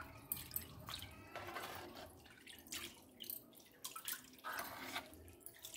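Soft, irregular splashes and drips of water in a plastic basin as leafy chickpea greens are rinsed in it.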